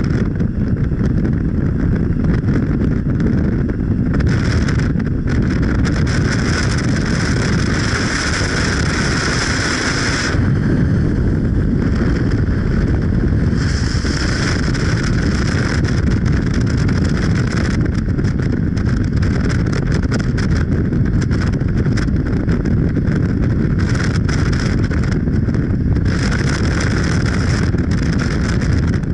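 Steady rumble and hiss of a moving vehicle, with wind noise, running unbroken; the higher hiss grows and fades in patches.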